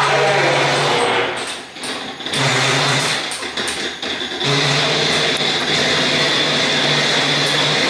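Ghost-train ride car running through the dark ride, a steady mechanical whirring with a low electric hum. The sound dips for a few seconds about a second and a half in, then a steady high whine joins it.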